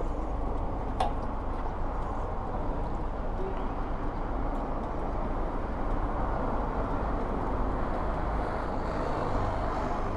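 Steady low vehicle rumble with road and wind noise, and one short click about a second in.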